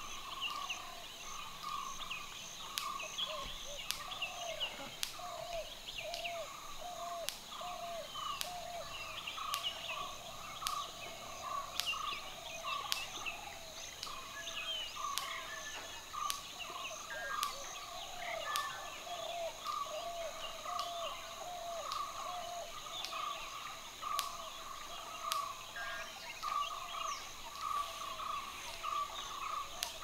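A steady chorus of animal calls in the forest: short notes that rise and fall, repeated about two or three times a second at two pitches, with fainter higher chirps and scattered sharp clicks.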